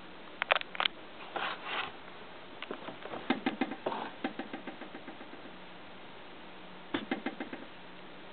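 Irregular clicks, taps and brief rustles close to the microphone, coming in a few short clusters with a quick run of taps in the middle: handling noise.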